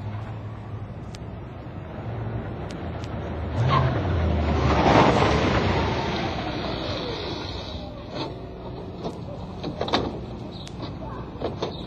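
A car driving past, its engine hum under a swell of tyre noise that peaks about five seconds in and fades, with a faint falling squeal from the tyres. Several sharp clicks and knocks follow in the second half.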